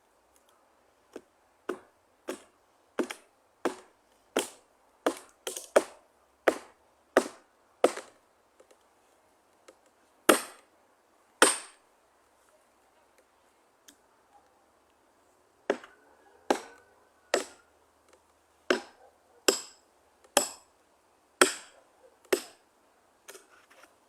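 Wood being chopped by hand with sharp, regular blows. A run of about a dozen strikes comes roughly one every 0.7 s, then two heavier blows after a short pause, then another run of about ten.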